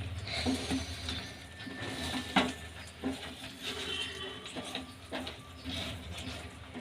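A spatula scraping and knocking in a pan as a thick, thickening sweet paste is stirred, with irregular scrapes and one sharper knock about two and a half seconds in. A low steady hum runs underneath.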